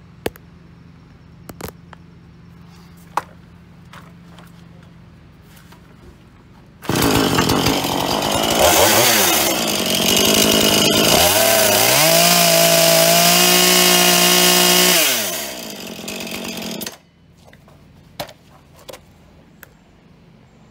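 Husqvarna two-stroke chainsaw starting about a third of the way in after a few sharp clicks. It revs unevenly, holds steady at high revs for a few seconds, then winds down, runs briefly at a lower speed and stops.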